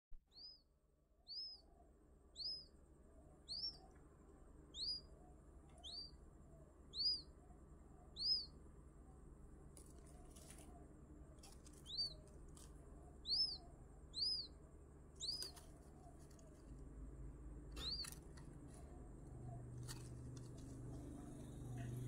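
Newly hatched quail chick peeping: a series of short, high-pitched peeps, each rising then falling, about one a second with a brief pause midway. A few faint clicks and a low rumble that grows near the end come in under the calls.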